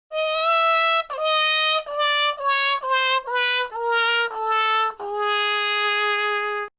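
Comic 'fail' tune on a brass horn: about nine notes, each a step lower than the last, ending on a long held low note.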